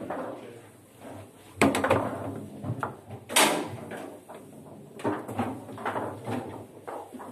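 Foosball table in play: irregular sharp knocks of the plastic players striking the ball and the ball hitting the table's walls, with rods clacking. The loudest two strikes come about one and a half and three and a half seconds in.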